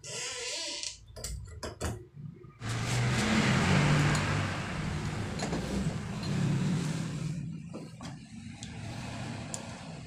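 Light metal clicks and knocks as the new doorknob's mounting plate and spindle are handled at the door, then a motor vehicle's engine comes in suddenly about two and a half seconds in, is loudest soon after and fades away over about five seconds.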